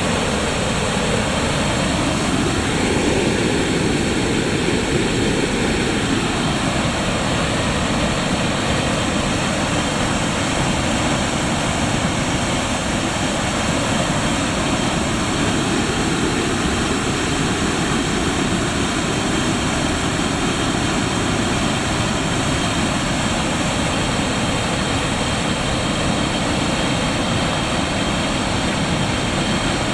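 Floodwater from heavy typhoon rain released through the gates of a hydroelectric dam: a loud, steady rush of water.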